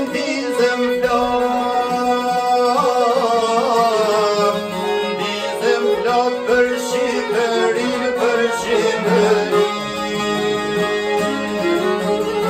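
Albanian folk song played live: long-necked plucked lutes, violin and accordion together, with a man singing in long, wavering held notes over them.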